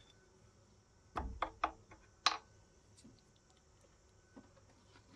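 A few light knocks in quick succession about a second in, then a single sharp click, from hand tools being worked and handled while manually tapping a threaded hole in steel.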